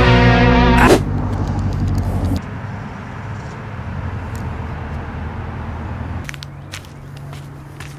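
Rock music that stops abruptly about a second in, followed by outdoor parking-lot ambience. A low, steady vehicle hum comes in about six seconds in, with a few faint ticks.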